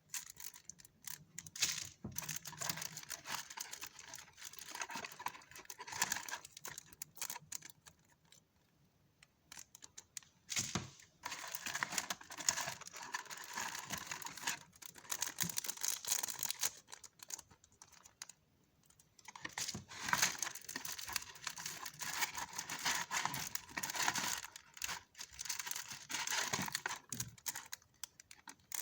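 Plastic packaging and sticker sheets being handled while packing an order: crinkling and rustling with many small clicks and taps, in bursts, with two short lulls.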